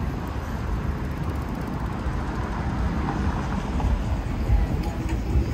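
City street ambience: a steady wash of passing road traffic with a low rumble.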